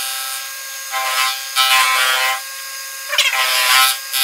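Small benchtop milling machine running with a steady motor whine while it cuts an aluminium block. The cutting noise swells and fades about four times as the cutter is fed across the block to clean up its faces.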